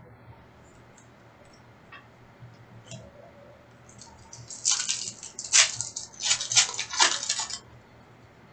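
A few faint clicks, then, starting about four seconds in, some three and a half seconds of loud crackling as the foil wrapper of a trading-card pack is torn open and crinkled.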